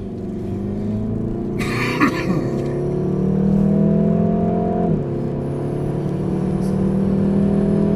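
Car engine heard from inside the cabin, accelerating hard with its pitch climbing steadily. About five seconds in the pitch drops at an upshift, then climbs again. A short burst of noise comes about two seconds in.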